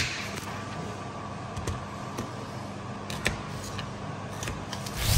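Kitchen knife slicing through a peeled onion and tapping on a plastic cutting board: a sharp tap at the start and a few fainter clicks, over a steady low hum. A louder rush of noise rises near the end.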